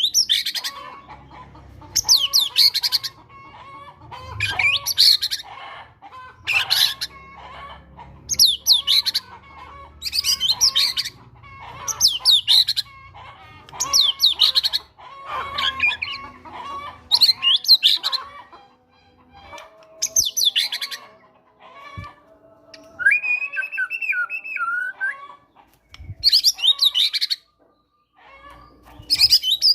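White-rumped shama singing in short, loud bursts of rapid high notes about every two seconds, a fighter-style song built on mimicked cinereous tit (gelatik batu) calls. About two-thirds in, a lower, slower whistled phrase breaks the pattern.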